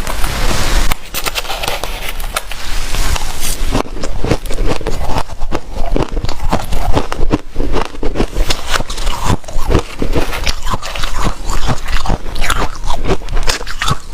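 Close-miked crunching of white snow ice being bitten and chewed, a dense run of sharp crackles throughout.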